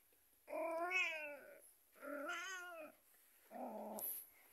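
A cat giving two long, wavering yowls, each about a second long, then a shorter, rougher call near the end: the complaining sounds of a cat in a bad mood.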